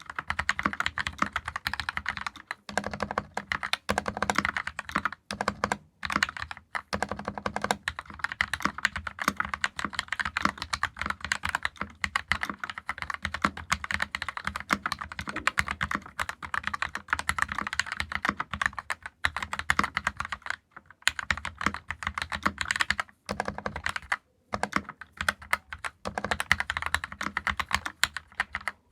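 Fast, continuous typing on a custom 60% mechanical keyboard with Keyfirst Cream linear switches (Krytox 205g0-lubed, filmed), a brass plate in a plastic case and GMK keycaps. It makes a dense stream of key clacks, with brief pauses about 21 and 24 seconds in.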